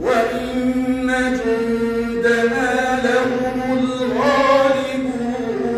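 A man reciting the Quran in a melodic chanting style, drawing out one long held note that climbs in pitch about four seconds in and settles back near the end.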